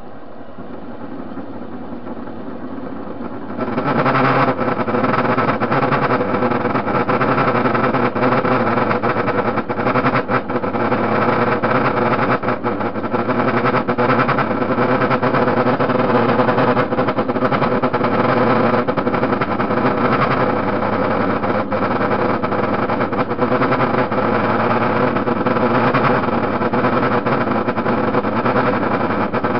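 TV-16 metal lathe running, its motor and gearbox giving a steady whir with several held tones, while it turns a metal bar blank. The sound jumps sharply louder about four seconds in and then holds steady.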